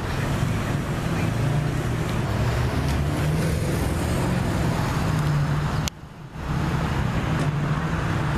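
Street traffic: vehicle engines running with a steady low hum and road noise, with a brief drop in the sound about six seconds in.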